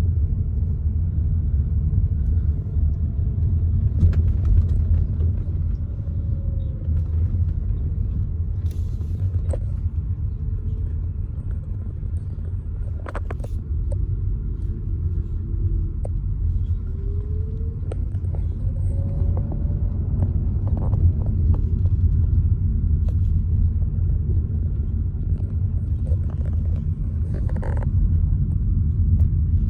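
A car driving, with a steady low rumble of engine and tyres, a faint whine that rises and falls in pitch, and a few light clicks and knocks.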